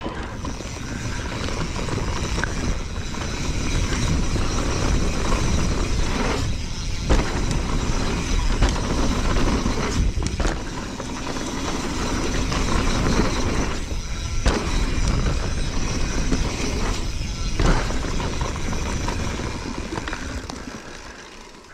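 Mountain-bike riding noise on a chest-mounted camera: continuous wind rush and tyres rolling over dirt, with a few brief dips, fading near the end.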